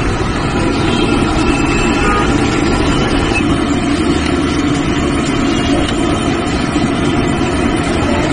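Steady roadside street noise: traffic running, with voices mixed in.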